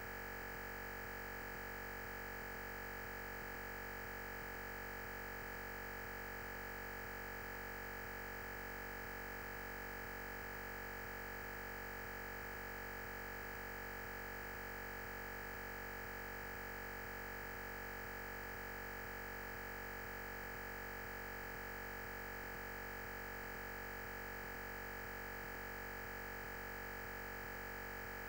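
A steady, unchanging electronic tone and hiss, with one high tone the strongest, and no speech. It is recording-chain noise where the lecture's sound has dropped out.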